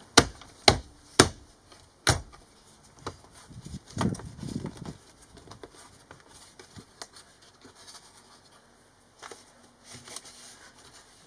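Sharp plastic clicks and knocks from a van's center-console trim being handled and pressed into place: four loud clicks in the first two seconds, a brief rustle about four seconds in, then softer scattered taps.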